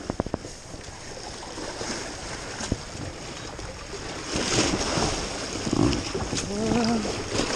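Small waves washing and splashing over rocks at the water's edge, louder from about four seconds in. A few light knocks near the start and a short voice sound near the end.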